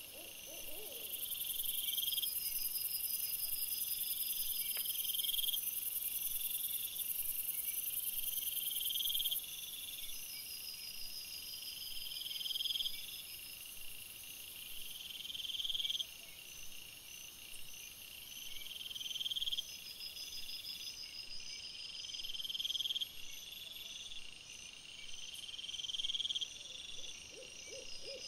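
Crickets calling at night: a chirping call that swells for about a second and breaks off, repeating every three to four seconds, over a steady very high-pitched trill that stops about a third of the way in.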